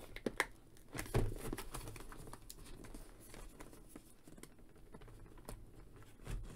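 Fingers picking and scratching at the flap of a cardboard action-figure box to open it without tearing it. Faint scattered clicks, scratches and crinkles, with a few louder taps near the start, about a second in and near the end.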